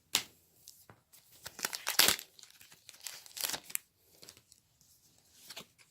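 Foil wrapper of a Pokémon Team Up booster pack being torn open and crinkled: several sharp rips and rustles, loudest about two seconds in.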